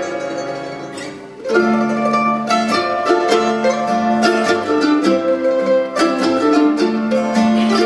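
Two mandolins and an acoustic guitar playing a bluegrass waltz. The notes ring and fade for about the first second and a half, then the ensemble comes back in loudly with a picked mandolin melody over the guitar.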